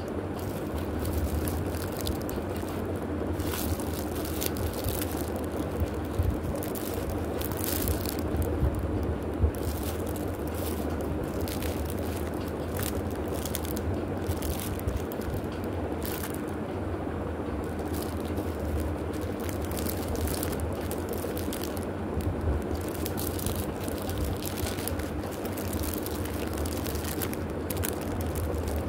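Plastic packaging sleeves and paper sheets crinkling and rustling in the hands, in short irregular bursts, over a steady low hum.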